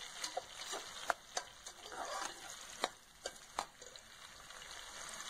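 Sliced onions sizzling in hot oil in a steel pot, stirred with a perforated steel spoon that clinks and scrapes against the pot at irregular intervals.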